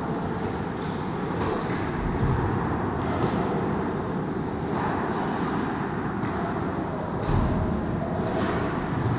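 Steady rumbling noise of an ice rink during a hockey game, with faint clicks and scrapes now and then.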